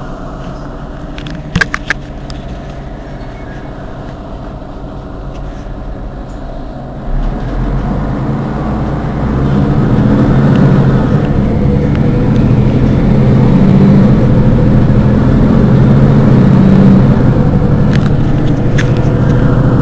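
Mercedes-Benz Citaro G C2 articulated bus's diesel engine idling at a standstill. It gets louder about seven seconds in and louder still from about ten seconds, then runs steadily. A few sharp clicks come early on and near the end.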